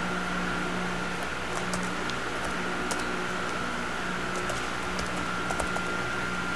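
Steady hum and hiss of a running wall-mounted fan, with a thin steady high-pitched whine and a few faint light clicks scattered through.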